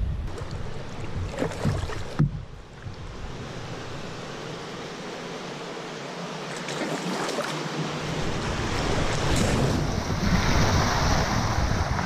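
Rushing water of a shallow river riffle against a canoe, growing louder from about eight seconds in and loudest near the end as the canoe runs into the fast water. Earlier, wind rumbles on the microphone, and there is one sharp knock about two seconds in.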